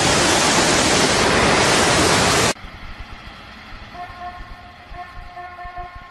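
A fast torrent of floodwater rushing loudly and steadily around a half-submerged truck, cutting off suddenly about two and a half seconds in. A much quieter stretch follows, with a faint high, steady tone from about four seconds in that breaks off now and then.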